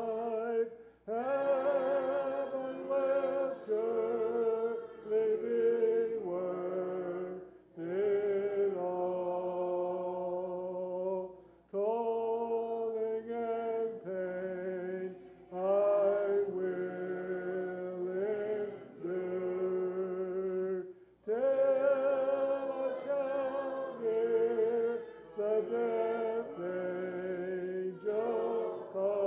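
Church congregation singing a hymn a cappella, unaccompanied voices holding long notes in phrases with short breaks between them.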